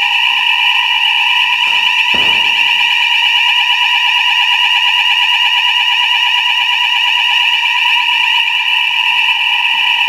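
Electronic fire alarm sounding: a loud, steady, high-pitched alarm tone with a rapid flutter, holding without a break.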